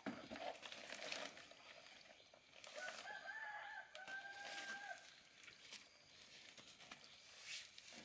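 A rooster crowing once, faint: one drawn-out call of about two seconds in two parts, with light rustling and clicks around it.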